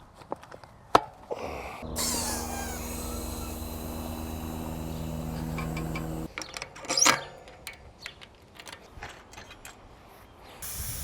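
A small motor runs with a steady hum for about four seconds, then cuts off suddenly, followed by a few light clicks and knocks.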